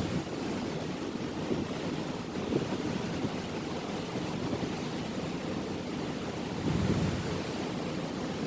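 Steady rushing of wind and water along a moving tugboat, with wind buffeting the microphone. The rush swells briefly about seven seconds in.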